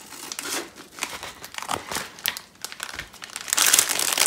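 A padded mailer crinkling as it is cut open with scissors, in irregular crackles, then a clear plastic bag of Lego pieces crinkling louder and more continuously as it is pulled out and handled near the end.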